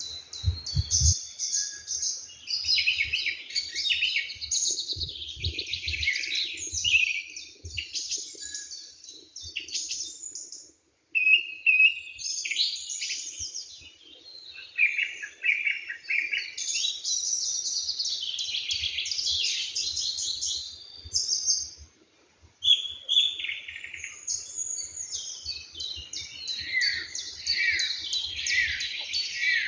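Several songbirds singing and chirping at once, overlapping high-pitched phrases and trills with hardly a pause. The sound cuts out briefly about a third of the way through and again about two-thirds through, and a few low thumps come about a second in.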